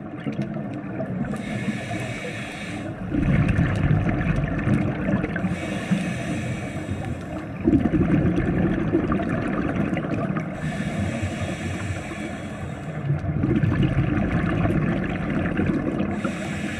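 Scuba diver breathing through a regulator underwater: a hiss on each inhale alternates with a louder rumble of exhaled bubbles, about one breath every five seconds, three breaths in all.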